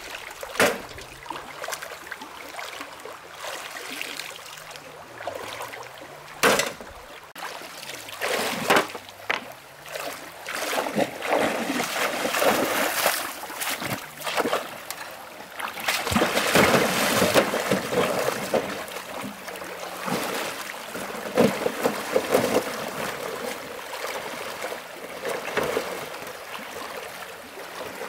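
Water splashing and sloshing, with sharp knocks now and then and a louder stretch about midway.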